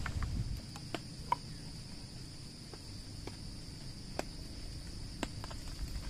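Steady high-pitched insect chorus, crickets, with scattered light ticks and taps at irregular intervals.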